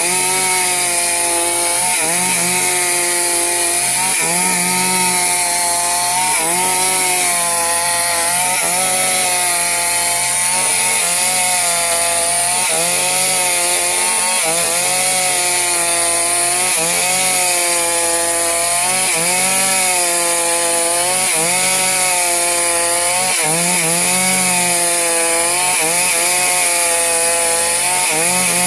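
Chainsaw cutting through the thick edge of a teak slab. The engine pitch repeatedly dips and climbs back, about every two seconds, as the chain is worked into the wood under load.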